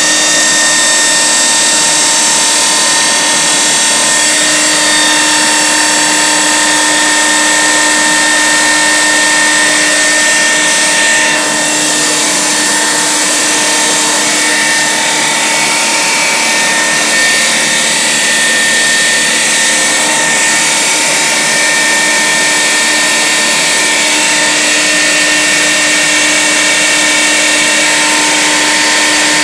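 Homemade high-pressure air compressor, an AK-150 three-stage piston head from a Russian tank driven by a 2.5 kW three-phase electric motor, running loud and steady just after start-up with a constant mechanical hum. The level dips slightly about eleven seconds in.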